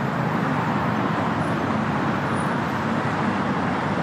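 Steady road traffic: a stream of cars running along a busy multi-lane city road, heard as a continuous, even rumble.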